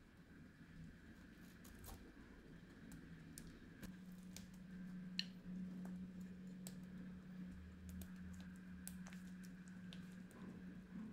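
Faint soft dabs, taps and scratches of a pastry brush soaking espresso into a sponge cake layer, scattered irregularly over a low steady hum.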